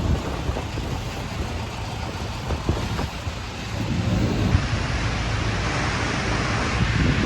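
Truck engine idling steadily under wind noise on the microphone; the wind noise grows stronger about halfway through.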